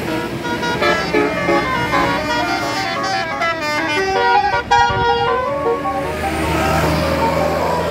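Bus telolet horn, a set of multi-tone air horns, playing a fast melody of short notes that step up and down for about five seconds. It then stops, leaving a bus engine running low.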